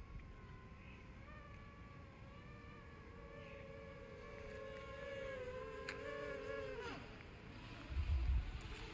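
DJI Mavic Air quadcopter's propellers humming faintly, the pitch shifting as the motors change speed and falling sharply about seven seconds in. Wind buffets the microphone with a low rumble near the end.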